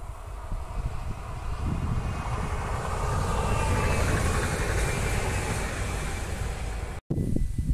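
NS Sprinter electric multiple unit passing close by: a rumble and rush that builds over the first couple of seconds, peaks around four seconds in with a faint whine on top, then eases off. It cuts off abruptly near the end, giving way to wind on the microphone.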